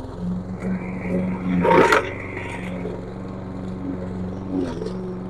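A 201cc self-propelled walk-behind lawn mower engine running steadily under load while cutting through thick brush. About two seconds in, a loud crashing whack as the blade chops into woody brush and sticks, then a lighter knock near the end.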